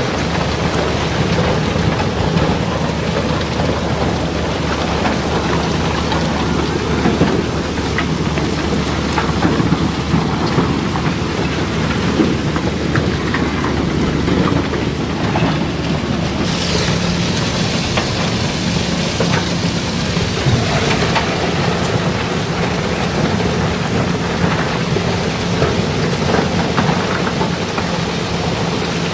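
River rock and cobbles pouring down through an opening in the barge's hold: a dense, steady clatter of stones rattling against each other over a rumble, with a steady hum underneath. About 16 seconds in there is a brief high falling screech.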